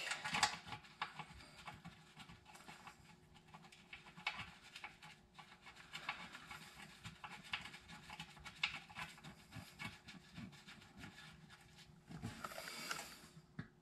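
Faint scattered clicks and rubbing as a transmission pan bolt is threaded in by a gloved hand, metal lightly tapping against the steel pan.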